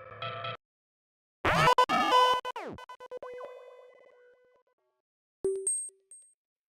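A string of short synthesized trailer sound effects with silent gaps between them. First a brief tone. About a second and a half in comes a loud burst of rapid clicks and ringing pitched tones that dies away over a couple of seconds. Short high blips follow near the end.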